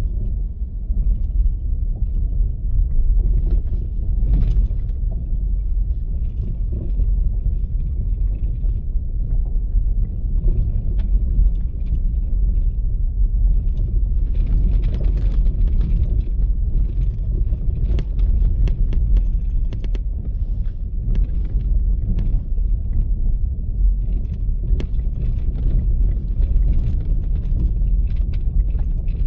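Vehicle driving on a rough dirt road: a steady low rumble with scattered knocks and rattles, busier in the second half.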